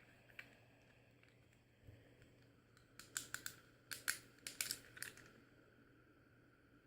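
Sharp plastic clicks from a fidget cube's buttons and switches being worked, a quick run of about a dozen clicks starting about three seconds in and stopping a couple of seconds later, with a few faint single clicks before.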